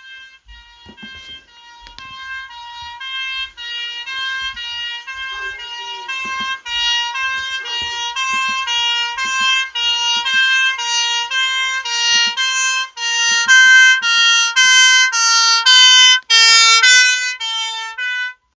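Ambulance two-tone siren alternating between a high and a low note, about one cycle a second, growing steadily louder as it approaches. It cuts off abruptly near the end, switched off on arrival.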